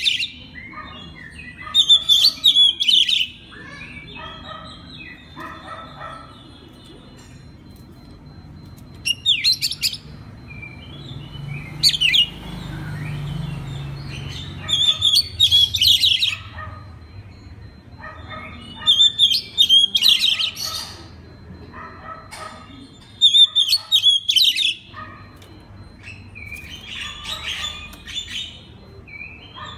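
Oriental magpie-robin (kacer) singing: loud bursts of varied whistled and chattering phrases every few seconds, with short pauses between them.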